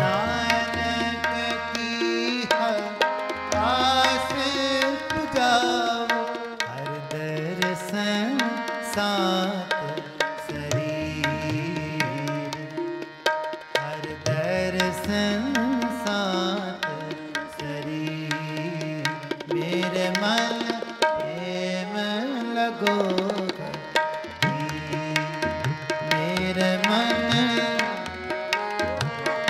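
Sikh kirtan: harmoniums sustain a melody over a steady tabla rhythm, with a man's voice singing long, gliding notes.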